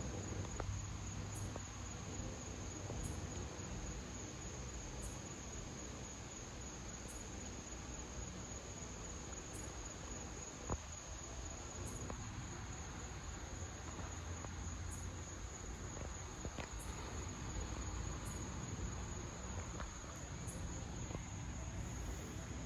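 Crickets trilling in a steady, high-pitched night chorus, with a single faint click about eleven seconds in.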